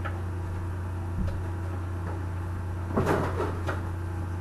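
Microwave oven running with a steady low hum, and popcorn kernels popping inside the bag: a few scattered pops, then a quick cluster about three seconds in.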